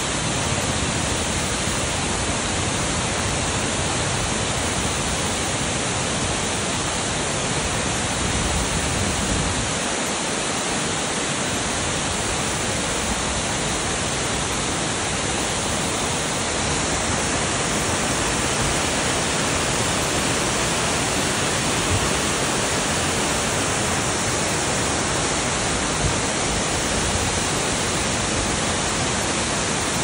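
Waterfall: water falling in a steady, even rush.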